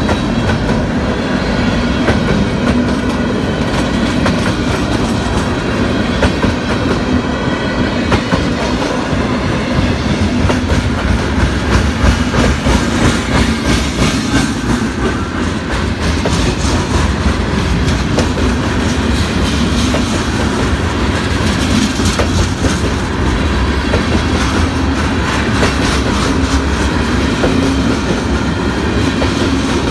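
Freight train cars rolling past with a steady rumble, their steel wheels clicking over rail joints.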